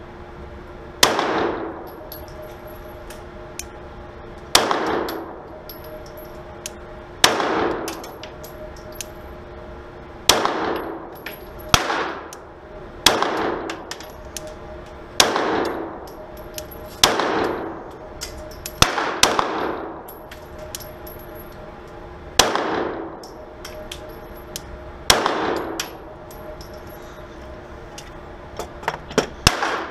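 Glock 17 9mm pistol fired in slow, deliberate single shots, about a dozen in all, roughly one every two to three seconds. Each shot rings out with a short echo off the walls of an indoor range.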